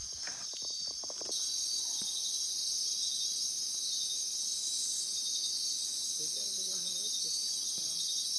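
Night chorus of rainforest insects, a steady high-pitched buzzing and trilling that fills out a little over a second in, with a few soft knocks in the first second.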